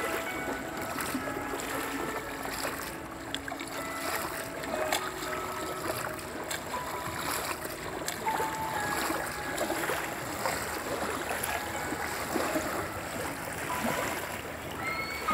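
Small waves lapping and washing over a sandy riverbank, with light splashes.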